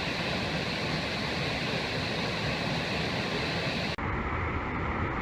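Steady rushing roar of a waterfall. About four seconds in it drops out for an instant and comes back duller and deeper.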